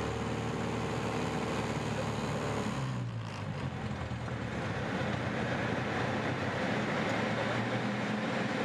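Engine and propeller of a CAP 10 aerobatic aircraft running steadily. About three seconds in the engine note falls, then a steady rush of air with a lower engine drone continues.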